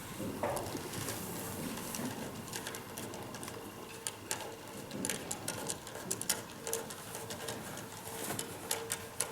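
Pigeons cooing, with scattered light clicks and a faint steady hum.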